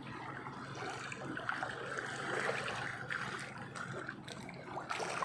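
Small waves lapping and trickling over the rocks of a rocky beach.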